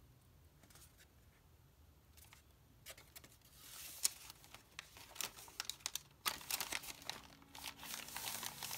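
Paper rustling and crinkling as a paper tag is slid into a glassine-bag pocket and the journal's thick paper pages are turned and pressed flat. Quiet for about the first three seconds, then steady rustling with small sharp clicks, with a brief pause a little past six seconds.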